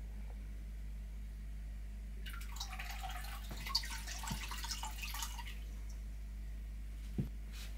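Water trickling and dripping for about three seconds, starting a couple of seconds in, followed by a single knock near the end, over a steady low hum.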